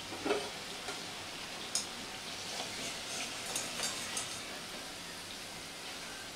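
Samosas sizzling in hot oil in a kadai on low heat, a steady soft hiss with scattered crackles and pops, while a wire skimmer scoops them out with a few light clicks.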